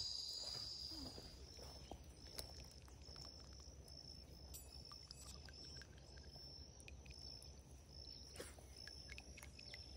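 Faint, evenly repeated high chirps, about one and a half a second, from an insect in the evening chorus by the lake, over a low steady rumble of outdoor ambience.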